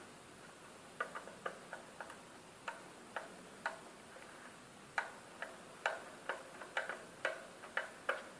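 Irregular small clicks and ticks of a screwdriver working a screw terminal and wires inside a plastic submersible-pump starter box, as the earth-wire connector is loosened. They start about a second in.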